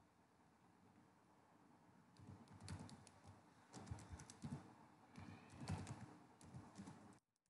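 Computer keyboard typing: faint clusters of keystroke clicks in short bursts, starting about two seconds in.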